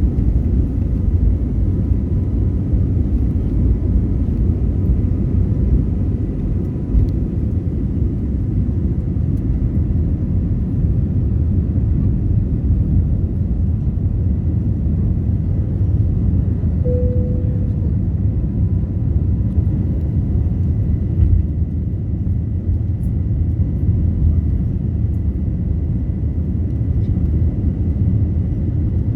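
Passenger airliner's engines giving a steady low rumble, with a faint steady whine above it and a short tone about halfway through.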